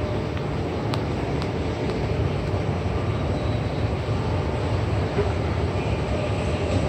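Steady low mechanical rumble in a subway station concourse, from the escalators and ventilation running, with two faint clicks about a second in.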